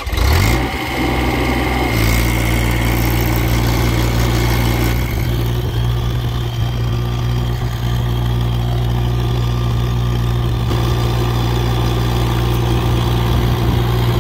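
Mini excavator's Kubota D902 three-cylinder diesel engine running steadily, starting abruptly with a slight rise about two seconds in.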